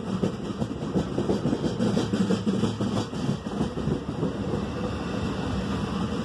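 NJ Transit bi-level commuter coaches rolling past close by: a steady rumble of wheels on rail with a scatter of clicks and knocks.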